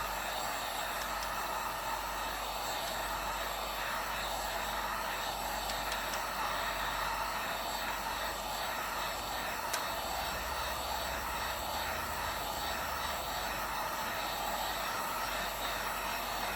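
Heat gun running steadily, a continuous blowing hiss of hot air as it warms a phone's back glass to soften the adhesive underneath.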